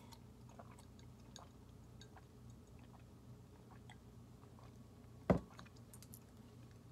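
Faint swallowing sounds while drinking milk from a glass, then a single sharp knock about five seconds in as the glass is set down.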